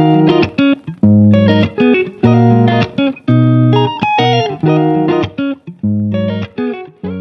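Background music: plucked guitar notes over a bass line in a steady rhythm, growing quieter near the end.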